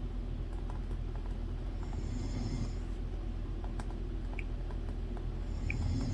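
A person snoring in slow, even breaths, with one snore about two seconds in and another near the end, over a low steady hum. Scattered light clicks and taps sound between the snores.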